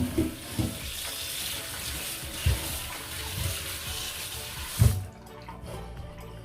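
Kitchen tap running into a sink, with a few dull knocks in the basin, cut off about five seconds in.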